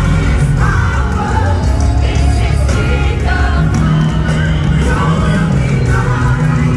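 Live gospel worship music: a band with heavy bass and drums playing loudly, with singing and a crowd shouting along.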